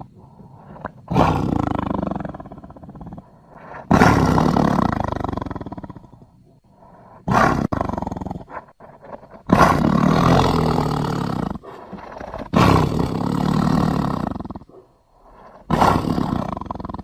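A tiger roaring about six times in a row. Each roar starts suddenly and fades out over a second or two, with short pauses between.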